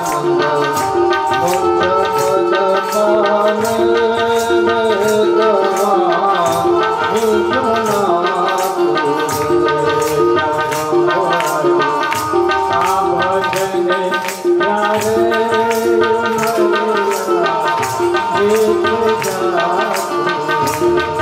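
Devotional bhajan music: a sustained melody over a hand drum, kept in time by a steady beat of hand-clapping and wooden kartal clappers.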